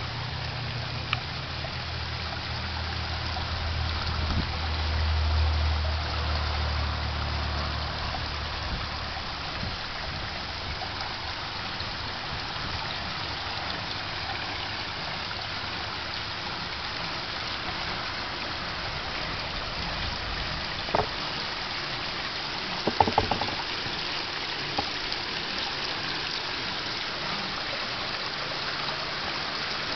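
Water trickling and splashing steadily from a koi pond's rock waterfall, with a low rumble for the first several seconds and a few sharp knocks about three quarters of the way through.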